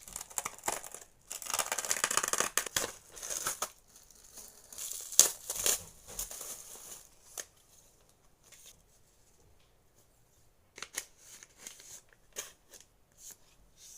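Packaging being torn and crinkled open by hand: a dense rustling, tearing stretch for a couple of seconds, a sharp snap about five seconds in, then after a lull a few scattered light clicks and taps.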